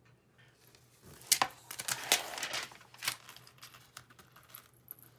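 Paper release backing from a self-adhesive mounting board crinkling and rustling as it is handled, with a few sharp crackles, loudest about one to three seconds in and then a few softer ticks.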